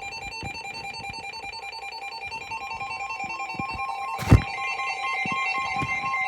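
Emergency alert tones: a rapidly pulsing two-tone alarm, joined about four seconds in by a steady higher tone. A single sharp knock sounds a little after four seconds.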